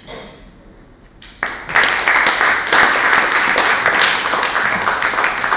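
Audience applauding. It starts about a second and a half in and quickly grows into loud, dense clapping that keeps going.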